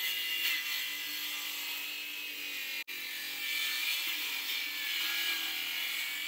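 Makita cordless circular saw running steadily as it cuts a bevel along the edge of a shelf board, shaving it down close to a scribed line. There is a split-second break in the sound about three seconds in.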